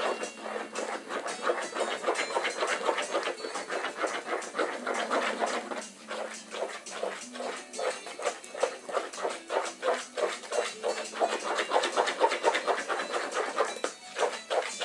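Soft, sticky bread dough being stirred by hand with a metal utensil in a bowl: quick rhythmic stirring strokes, about four a second, with brief pauses about six seconds in and near the end.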